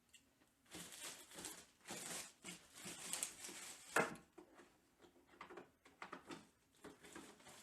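Plastic wrapping being ripped and crinkled off, in a series of irregular rustling tears, with a sharp snap about four seconds in.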